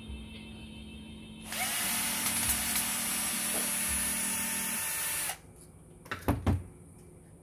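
Cordless drill running steadily for about four seconds, starting about a second and a half in and cutting off sharply, followed by two or three sharp knocks.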